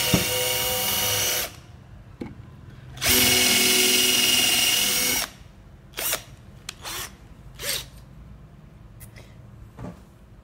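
Electric drill with a countersink bit cutting countersinks into the wooden chair frame for the angled reinforcement screws, each about 5 mm deep. It runs in two steady whining bursts, the first stopping about a second and a half in and the second running about two seconds from about three seconds in. A few light knocks follow.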